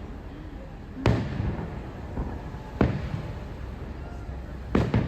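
Fireworks bursting overhead: three sharp bangs, about a second and a half to two seconds apart, each with a rumbling echo, over a crowd's murmur.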